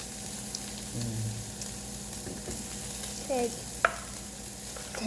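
Pork belly sizzling steadily as it grills, with one sharp click just before four seconds in.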